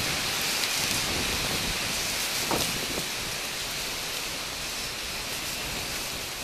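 Heavy rain pouring down in a steady hiss, easing slightly in level.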